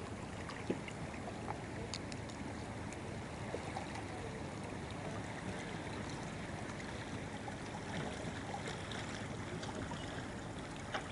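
Water swishing and trickling along the hull of a small motorboat under way, with the low steady hum of its Yamaha outboard motor underneath and a few faint ticks.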